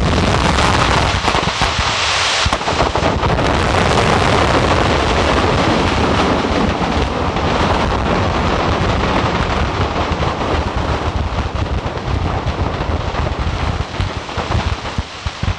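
Container load of 150 mm colour firework shells going up in a mass explosion: a continuous dense crackling over a deep rumble from countless shells and stars bursting at once. It thins into separate bangs near the end.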